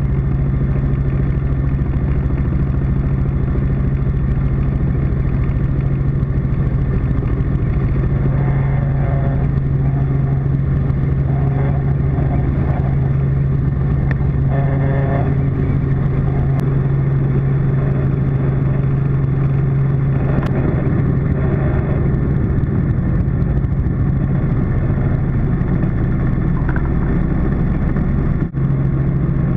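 Robinson R44 helicopter's piston engine and rotors heard from inside the cabin: a loud, steady drone with a strong low hum, briefly dropping out for a moment near the end.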